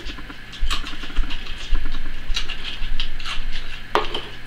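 Dry French Toast Crunch cereal rattling in a bowl as the bowl is handled: a run of irregular light clicks and taps, with a sharper knock about four seconds in as the bowl is set down on the table.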